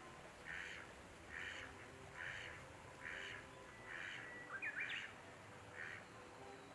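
Faint animal call, short and noisy, repeated steadily about once a second, around eight times. About two-thirds through, a brief chirping bird call of quick rising and falling whistles joins it.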